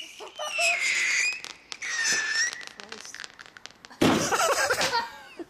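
Fireworks going off: a high whistle falling in pitch, then a second whistle, with a scatter of small crackles. A sudden loud burst comes about four seconds in and fades over a second, and another starts right at the end.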